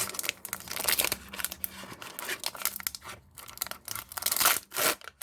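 Foil wrapper of a Magic: The Gathering booster pack crinkling and tearing as it is handled and torn open, an uneven crackle.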